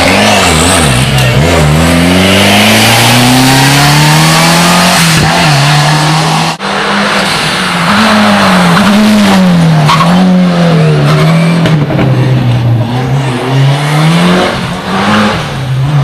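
Rally car engine revving hard under full throttle, its pitch climbing and dropping again and again with gear changes and lifts. It breaks off sharply about six and a half seconds in and picks up again, still rising and falling on and off the throttle.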